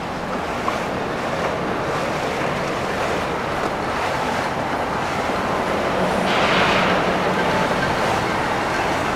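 Steady rush of water from a boat under way, with wind noise on the microphone. A brighter hiss of spray swells for about a second some six seconds in.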